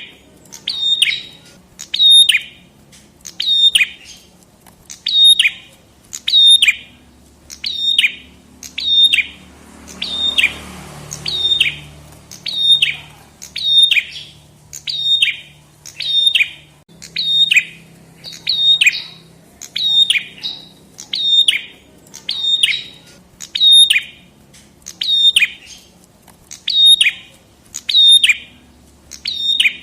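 A prenjak (prinia), the 'prenjak kepala merah', gives a sharp, high call about once a second in an even, unbroken series. Each call sweeps quickly downward. A faint low hum lies under it.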